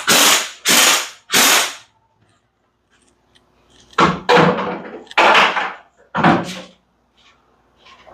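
Impact wrench hammering in short bursts, loosening lug nuts to take a wheel off: three bursts, a pause of about two seconds, then four more.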